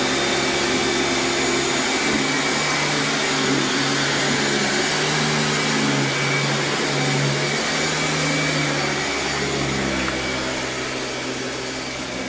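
Steady loud whooshing noise with a low hum under it, the hum shifting in pitch now and then, like a motor-driven appliance running.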